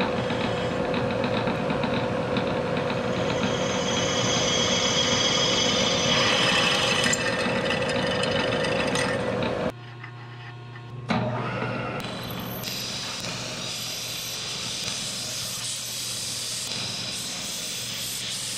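Milling machine spindle running and cutting into the cast aluminum flask's pin ear: a steady machine tone with a high-pitched cutting sound over it, which cuts off abruptly about ten seconds in. After a brief quieter gap the machine runs again, more quietly, until the end.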